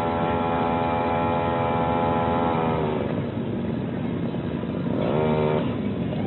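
Small brush-cutter engine running at high revs, then throttled back about three seconds in so the pitch falls toward idle, with a short rev about five seconds in that drops away again.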